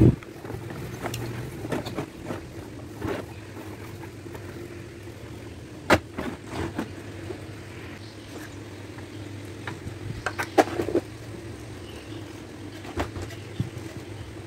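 Objects handled and set down on a wooden workbench: scattered knocks and clicks, the sharpest about six seconds in and a quick run of them near eleven seconds, over a steady low hum.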